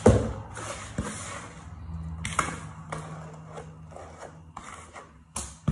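A spoon scraping a sticky crushed-biscuit and condensed-milk mixture out of a mixing bowl into a baking tray, in irregular scrapes with light knocks against the bowl.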